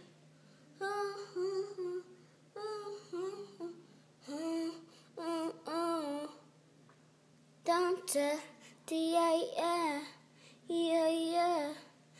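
A young girl humming a tune in short phrases, with some notes held and wavering.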